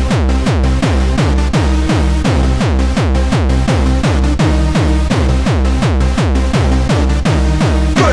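Hardstyle dance track: a heavy kick drum hitting about two and a half times a second, each kick falling in pitch, over a loud bass line.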